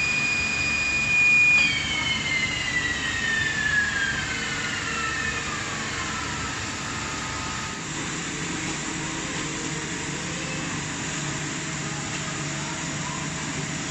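Mazak Integrex 200-SY milling spindle whining at a steady high pitch, then winding down with a falling whine over about four seconds, starting about a second and a half in. After that, a steady lower machine hum.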